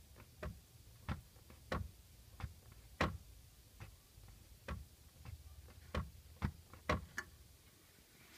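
Rear shelf of a Peugeot 206 CC knocking: a series of sharp, irregular knocks, roughly one every half second to second, over a low rumble.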